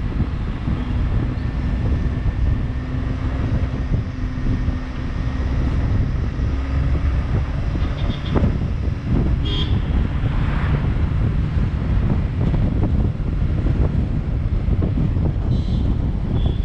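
A vehicle on the move, with wind rumbling heavily on the microphone and a steady low engine tone through the first several seconds. Short high-pitched tones sound briefly about ten seconds in and again near the end.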